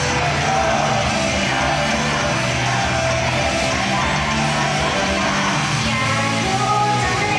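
Loud rock-style idol-pop song played live, with electric guitar and a singing voice over a steady band backing.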